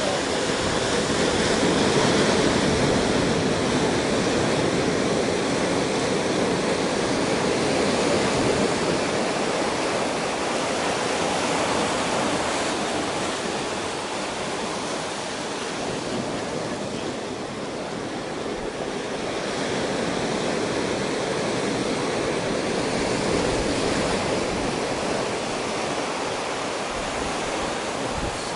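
Ocean surf washing up a sand and rock beach: a steady rush of foam that swells and ebbs as the waves come in, easing off about halfway and building again after.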